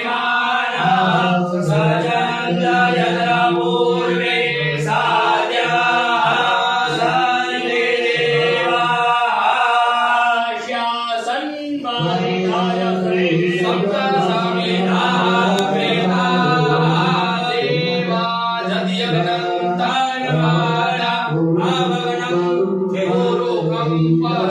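Hindu mantra chanting in a sung recitation, one continuous line of pitched voice with a steady low held note underneath for much of it.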